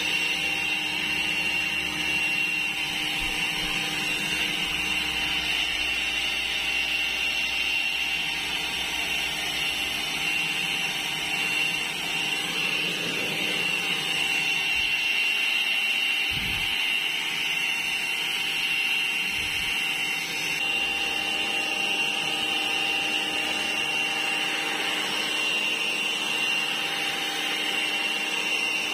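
Keelat KEAB002 cordless battery-powered electric leaf blower running steadily, a constant high motor whine over the rush of air as it blows dry leaves and debris.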